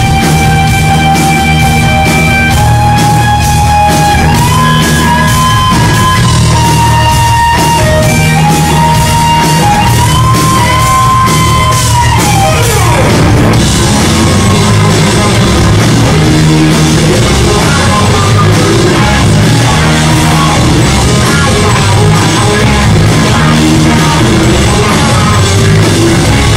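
A live rock band playing with drums, bass and electric guitars. A lead melody of long held notes stepping up and down carries the first half; about halfway through the band gets fuller and brighter, with heavier cymbals.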